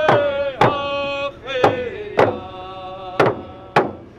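Voices chanting a song in long held notes over drum beats struck about twice a second, a First Nations drum song.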